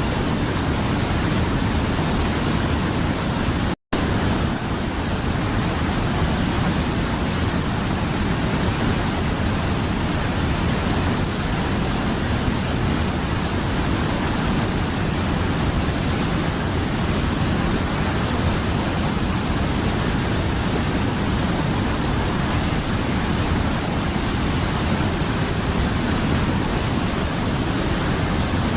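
Mountain river flowing, a steady full rush of water. It cuts out for an instant about four seconds in.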